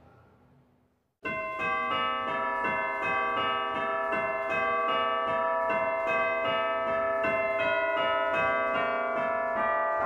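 Church bells: a faint fading ring, a moment of silence, then about a second in many bells start ringing loudly all at once, with rapid overlapping strikes and long sustained ringing.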